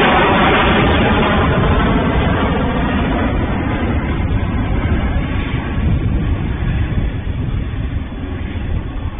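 A departing aircraft's engines at full takeoff power, loud at first, then fading gradually as it climbs away.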